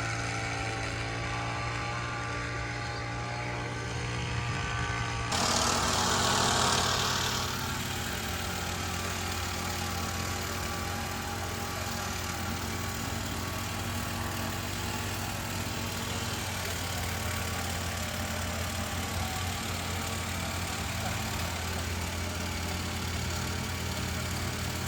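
A steady low mechanical hum, like a motor running, with a brief louder hiss about five seconds in.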